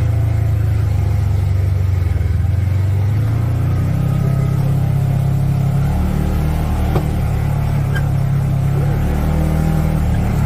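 ATV engine running steadily while under way, with one sharp knock about two-thirds of the way through.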